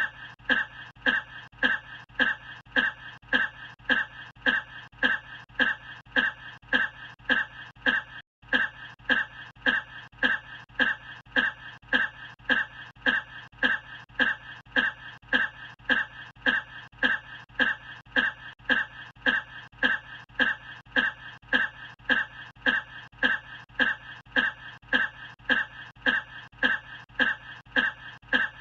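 A single short human cough looped over and over, repeating identically about twice a second. There is one brief dropout about eight seconds in.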